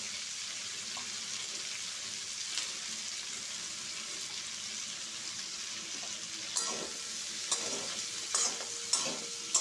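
Chopped onions frying in oil in a kadai, a steady sizzling hiss. From about six and a half seconds in, a spatula stirs and scrapes against the pan in several short strokes.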